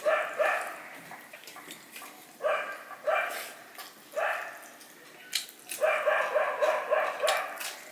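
Dogs barking repeatedly in short bouts, ending in a fast run of about seven barks near the end.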